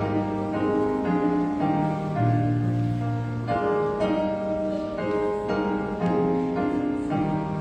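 Keyboard instrument playing slow music in held chords that change every second or so.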